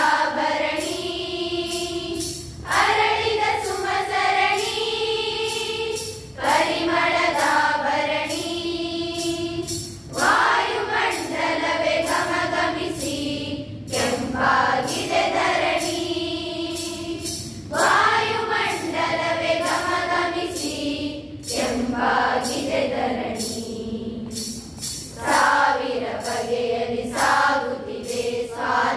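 A large group of young women singing a Kannada patriotic song together, in sung phrases of about four seconds with short breaks for breath between them.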